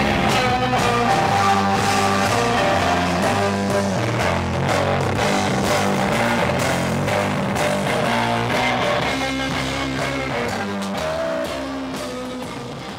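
Rock band playing loud, with distorted electric guitar, bass guitar and drums; the music fades out over the last few seconds.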